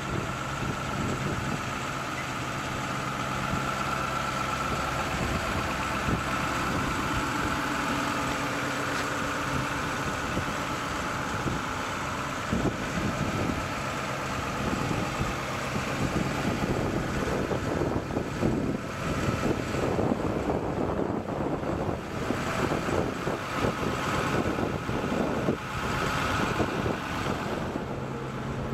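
Truck engine idling steadily. In the second half, uneven rumbling noise joins it.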